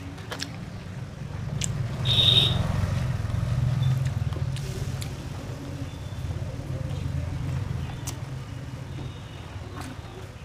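Low rumble of a passing motor vehicle that swells about two seconds in and fades out near the end, with a short high beep at its loudest point. Soft clicks of fingers mixing rice on a steel plate come through here and there.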